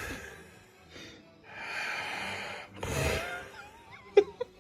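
A sleeping person snoring: a long hissing breath, then a loud low snort, with a sharp click near the end.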